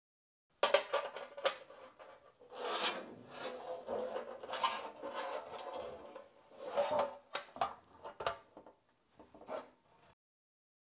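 Steel Porsche 911 fuel tank scraping and knocking against a steel welding table as it is handled and turned over. There are sharp metal knocks near the start and again near the end, with rasping scrapes in between.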